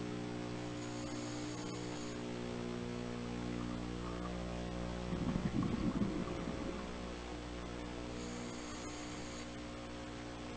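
Scuba diver breathing through a regulator underwater: a soft hiss of inhaling about a second in and again near the end, and a louder rush of exhaled bubbles around the middle. All of it sits over a steady hum.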